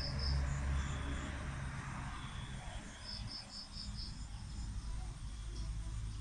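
An insect, most like a cricket, chirping in short runs of five or six quick high pulses, heard right at the start and again about three seconds in. A low rumble sits underneath and fades after about three seconds.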